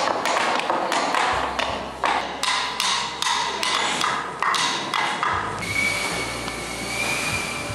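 Reconstructed Popov-style theatrical noise machines worked by hand. For about the first five seconds there are quick, irregular wooden knocks and clacks. Then a steady hiss sets in from a cranked fabric-covered drum, a theatre wind machine.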